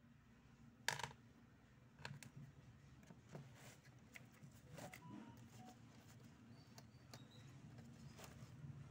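Near silence with a low steady hum, broken by a few faint clicks and rustles of flower stems being handled, the loudest about a second in.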